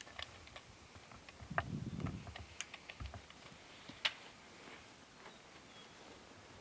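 Scattered light clicks and ticks of gear being handled, with a brief low rumble about two seconds in; no shot is fired.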